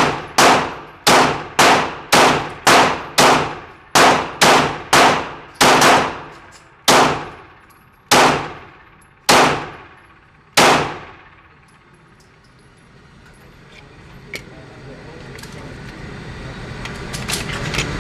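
9mm Glock 19 pistol fired shot after shot, about seventeen sharp reports with a short echo after each, at roughly two a second at first and then slowing to one every second or so, ending about ten seconds in. After the last shot a steady noise slowly swells, with a few faint clicks.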